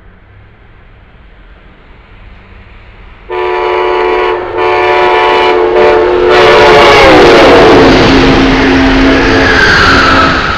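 A passenger train's horn sounds a short blast and then a long one as the train approaches at speed. Its chord drops in pitch as the train passes, over the rush of the cars going by.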